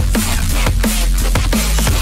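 Electronic music mixed on turntables and a DJ mixer. A fast, steady beat of deep kick drums, each falling in pitch, about three a second, runs over a sustained bass line.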